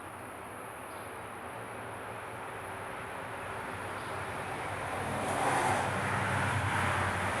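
Steady engine and road noise from a motor vehicle, with a low hum. It grows louder about five seconds in.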